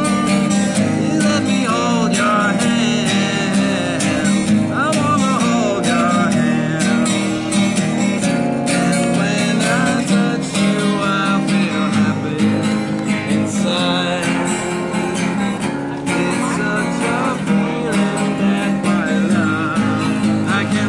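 Steel-string acoustic guitar played continuously, with a steady run of low notes under the chords.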